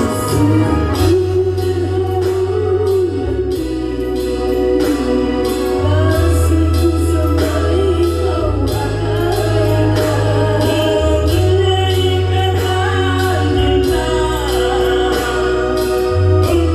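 Loud music over a sound system, with singing over a heavy bass line that changes note every second or two and a steady drum beat.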